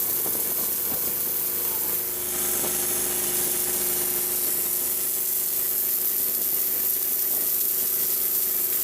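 Submerged arc welding in progress: a steady hiss with a steady hum under it.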